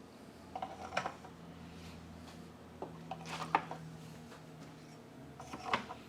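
Light knocks and clatter of wooden beehive frame parts being handled and set together, with a few sharp clicks about a second in, around three and a half seconds, and near the end.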